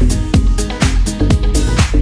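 Upbeat dance-pop music with a steady kick-drum beat, about two beats a second, and no singing.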